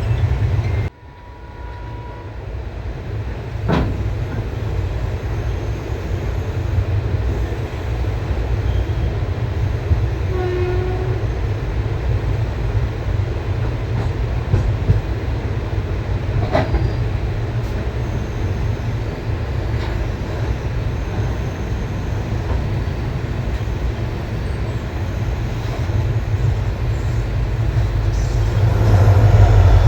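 Train running with a steady low rumble and a few sharp clanks. The sound drops off suddenly about a second in, then builds back up, and it grows louder again near the end.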